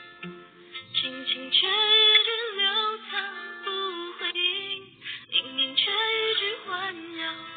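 A woman singing a gentle song with musical accompaniment, streamed through a phone live-streaming app so the sound is dull, with the treble cut off.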